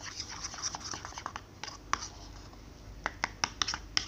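Spoon scraping and clicking against a white ceramic bowl while stirring thick fluffy slime. An irregular run of sharp clicks, thick in the first second and again around three to four seconds in.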